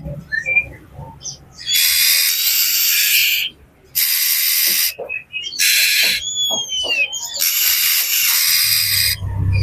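Oriental magpie-robin (kacer) in a noisy, agitated mood, giving harsh rasping scold calls in four long bursts, with a couple of clear falling whistles in between about two-thirds of the way through.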